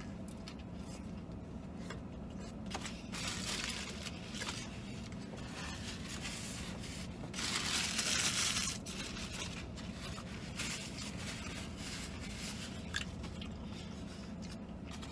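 Paper napkins rustling and crumpling as hands are wiped, in two bouts, the longer and louder one about halfway through, with a few small clicks. A steady low hum runs underneath.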